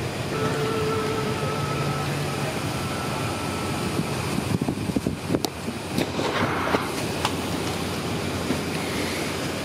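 Steady background noise of an airliner cabin, with a faint hum in the first few seconds and a run of small clicks and knocks around the middle.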